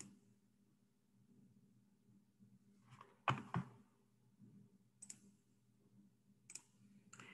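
Computer mouse clicking: a few short, separate clicks, a couple close together about three seconds in and single ones later, with near silence between.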